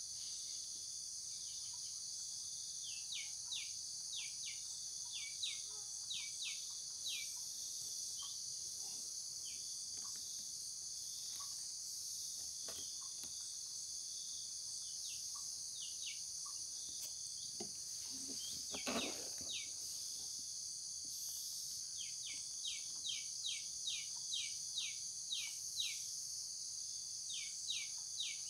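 Steady high-pitched drone of insects, with a bird calling in runs of short descending chirps, several a second, early on and again near the end. A brief louder rustle comes about two-thirds of the way through.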